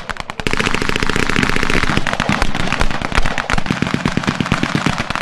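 Machine guns firing blank rounds in long, very rapid bursts, the shots running together into an almost unbroken rattle.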